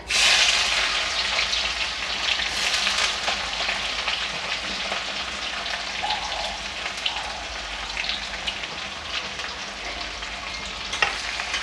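Chopped onion dropped into hot mustard oil in a metal kadhai, hissing loudly at once and then frying steadily with fine crackles. A sharp click comes near the end.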